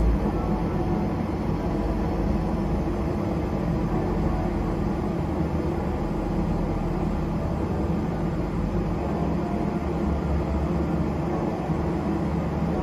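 A steady low machine drone with a faint hum in it, unchanging throughout, from running machinery on an airport apron.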